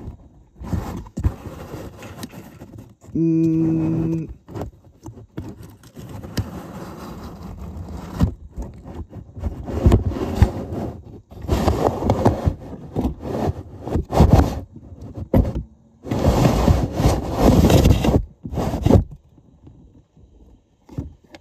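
Homemade model elevator car riding its shaft with a phone inside, scraping and rattling in uneven stretches as it runs rough. A short steady buzzing tone comes about three seconds in, and the rattling dies down near the end.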